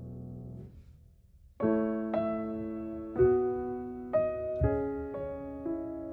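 Background piano music. A held chord fades away, and after a short pause a slow phrase of single notes and chords starts about a second and a half in.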